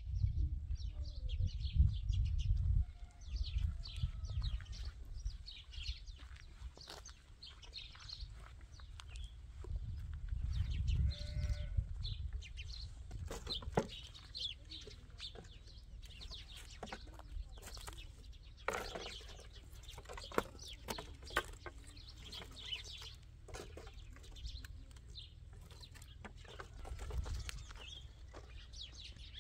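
Outdoor farmyard ambience: livestock bleating now and then among high bird chirps, with a low rumble in the first few seconds. Sticks of firewood knock and clatter at intervals as they are handled.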